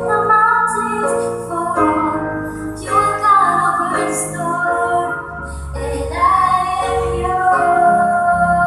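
A slow Christian worship song: a woman's singing voice holding and gliding between long notes over a keyboard accompaniment.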